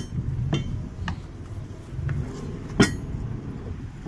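Several short, sharp metallic clinks and knocks from boat fittings as mooring lines are handled, the loudest nearly three seconds in, over a low steady rumble.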